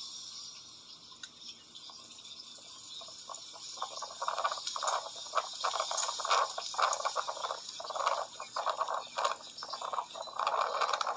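Wind buffeting the microphone of a bike-mounted Cycliq camera while riding, with uneven bursts of noise from about four seconds in over a steady hiss.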